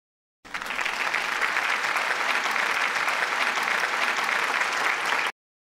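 Applause sound effect: a crowd clapping, starting abruptly about half a second in and cutting off sharply about five seconds in.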